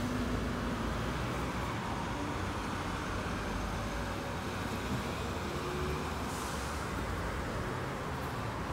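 Road traffic: a single-deck bus pulling away and cars driving past, a steady rumble of engines and tyres.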